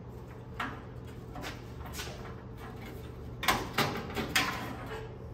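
Light metal clicks and clatters of chrome Chevy C10 grille trim being handled against the radiator support. A few scattered knocks come first, then a quick cluster of three or four louder clatters about three and a half seconds in.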